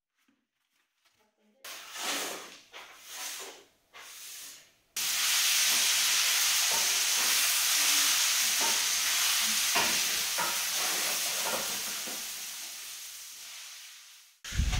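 A steady hiss cuts in abruptly about five seconds in, with a few faint knocks in it, and slowly fades away near the end. Before it come a second or so of silence and a few short, quiet sounds.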